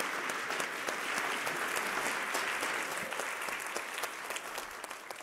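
Audience applauding, a dense patter of clapping that fades toward the end.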